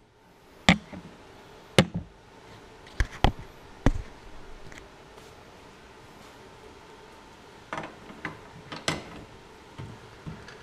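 Sharp metal knocks and clinks from tools and parts being handled at a metal lathe whose chuck is stopped. Several come in the first four seconds and another group near the end, over faint steady shop noise.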